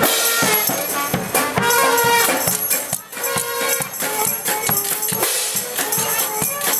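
Small street marching band playing on the move: brass horns carrying the tune over bass drum beats and clashing hand cymbals.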